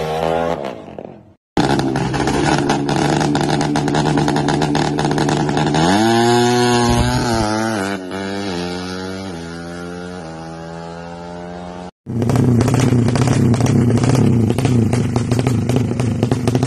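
Drag-race motorcycle engines through open Dos Muffler racing exhausts, in separate clips. First a bike fades away. Then one runs high and accelerates through the gears, its pitch climbing and dropping at each shift as it pulls away. About twelve seconds in, a bike runs loud and rough in quick throttle blips with a crackling exhaust.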